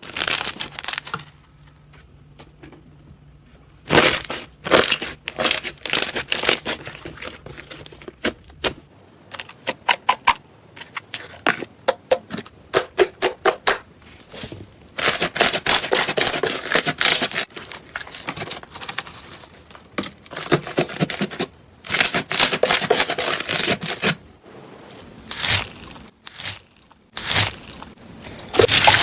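Slime being squeezed and pressed by hand, giving bursts of crunchy crackling and sharp pops with short quiet gaps between them.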